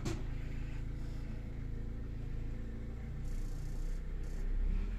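Nanni 50 hp marine diesel idling with a steady, even low hum. It runs smoothly at low revs, freshly serviced and very quiet.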